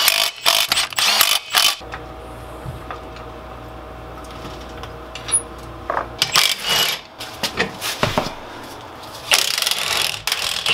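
Cordless impact driver running wheel nuts with a rapid clattering for about the first two seconds, then a few seconds of low steady hum, followed by more short bursts of clatter near the end.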